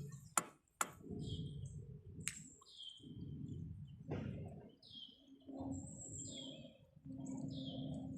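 A small bird chirping repeatedly, short downward-slurred notes about once a second, over a steady low rumble. There are a couple of sharp clicks in the first second.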